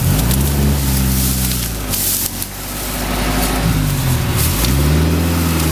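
UAZ-469 off-roader's engine revved hard while stuck in mud: it climbs at the start and is held, drops off about two seconds in, then climbs again about four seconds in and is held high.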